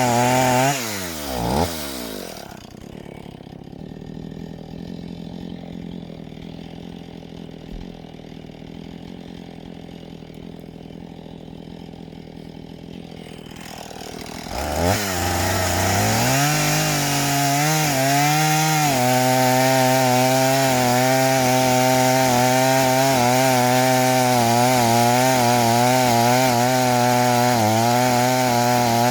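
Two-stroke chainsaw dropping from full throttle to idle about two seconds in and idling steadily. About fifteen seconds in it revs back up, and from about nineteen seconds it runs at full throttle with a wavering pitch as it cuts into a fresh log.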